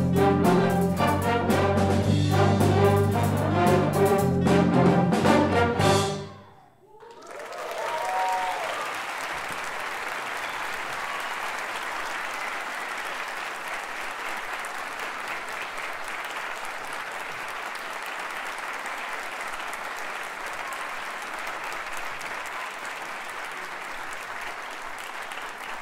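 School orchestra and big band, trumpets, saxophones and strings over drums, playing a loud brass-led final passage that cuts off sharply about six seconds in. Audience applause follows, with a few shouts of cheering near the start, and runs steadily on.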